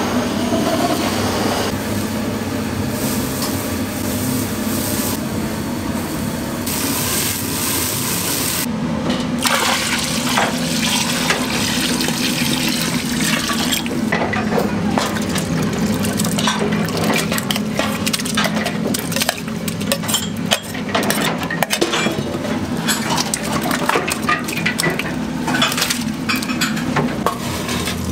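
Kitchen work: a steady watery hiss, with many sharp clicks and knocks of utensils in the second half.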